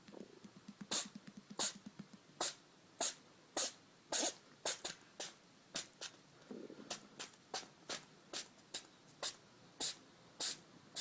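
An animal sneezing over and over, about twenty short sharp sneezes at roughly two a second, coming faster after the middle.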